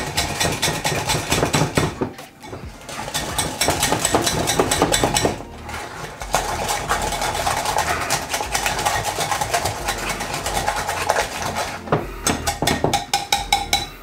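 Wire whisk beating chocolate ganache in a glass bowl: fast, rhythmic clinking of the wires against the glass, with brief pauses about two and five seconds in. The softened butter is being mixed into the ganache.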